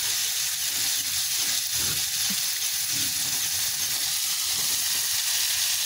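Shrimp frying in hot oil in a wok, a steady sizzle.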